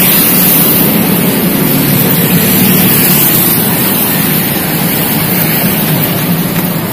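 Loud, steady rush of wind on the microphone mixed with highway traffic going by.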